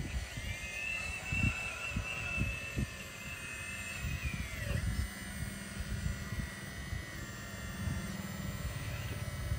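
Radio-controlled Hitachi model excavator's motor whining as it swings and raises its arm. The high whine rises about half a second in, holds for about four seconds and then falls away, over a low uneven rumble.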